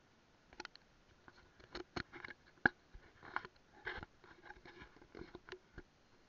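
Irregular close-up clicks and short knocks, starting about half a second in and coming in uneven clusters, some with a brief rubbing sound between them.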